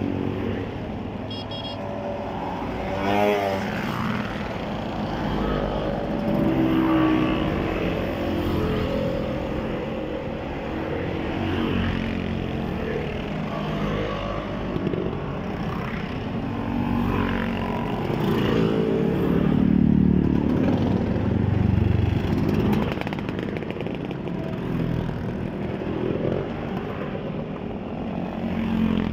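A stream of motor scooters riding past one after another, each engine note swelling and bending in pitch as it goes by, with a car passing among them.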